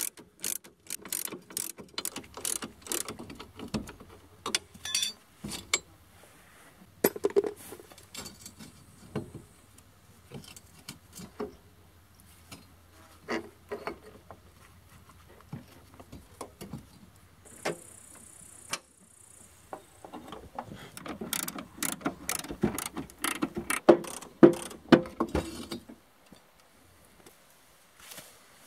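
Hand tools and steel parts on a rusted car's front suspension: ratchet and wrench clicks and metal parts clinking and knocking as the brake caliper and strut come off. A short hiss comes a little past halfway, and the loudest clanks come near the end.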